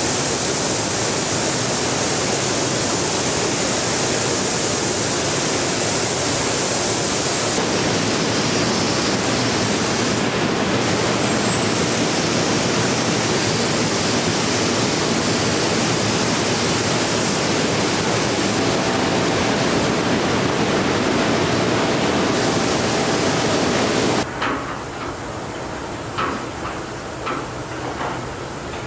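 Steady loud hiss of air in a car-body paint booth, from spray guns and the booth's air flow. About 24 seconds in it cuts off abruptly. What follows is quieter assembly-line background with scattered light clicks and knocks.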